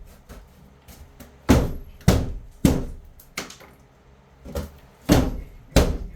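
Heavy blows striking a bathroom wall during demolition, about seven irregularly spaced hits, each a sharp bang with a short ringing tail.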